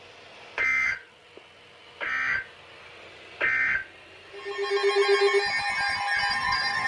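Emergency Alert System SAME header: three short data bursts, each a buzzy chirr about half a second long, sent about 1.4 s apart. They are followed, about four and a half seconds in, by the start of a steady alert tone that opens a new warning message.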